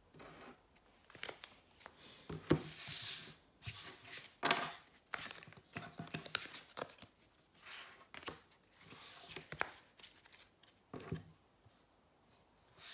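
Tarot cards being slid across a wooden tabletop and gathered up by hand, in irregular swishes and scrapes with a few light taps.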